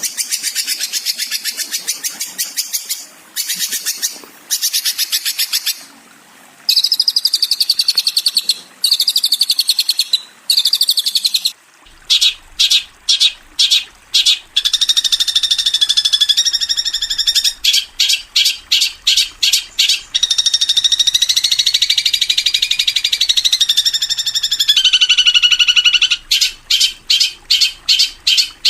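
Songbird training recording of fast, high, repeated chirps and chattering trills, coming in short bursts and stuttering series, as used for teaching caged long-tailed shrikes their song. From about twelve seconds in, a faint trickle of water runs underneath.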